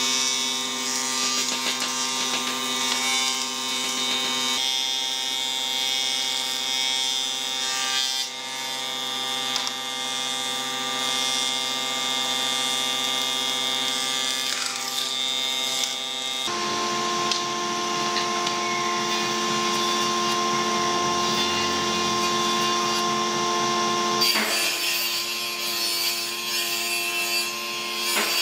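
A combination woodworking machine with a saw and planer running with a steady motor hum, its cutters working wooden boards. The pitch and tone of the machine change abruptly four times.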